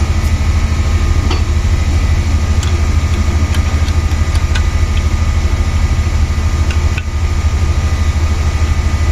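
A steady low machine hum, with a few faint light clicks scattered through it.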